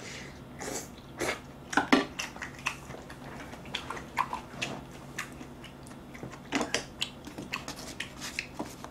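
A person chewing a mouthful of food, with irregular wet smacks and short clicks.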